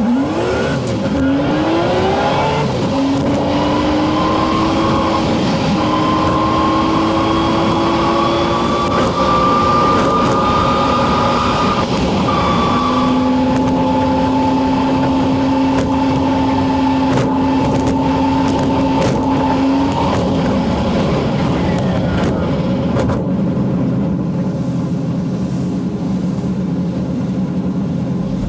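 1958 Ford F100 panel truck engine pulling while driving: its pitch climbs under acceleration, then drops about 12 seconds in and again about 20 seconds in. It runs evenly, having been sorted out with new points and a fixed fuel supply.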